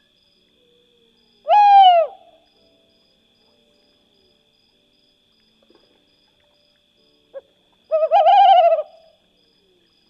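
Tawny owl calling twice: a short arching call about a second and a half in, then a longer wavering call near the end, led in by a couple of brief notes.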